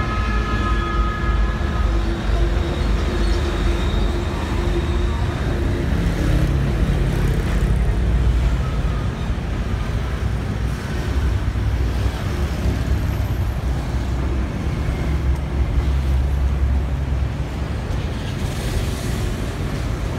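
Steady low engine rumble, continuous and even in level.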